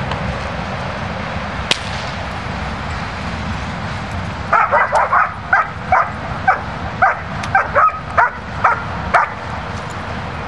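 German shepherd dog barking at the helper in the blind, a run of about fourteen quick barks starting a little before halfway through. This is the hold-and-bark of a Schutzhund protection routine.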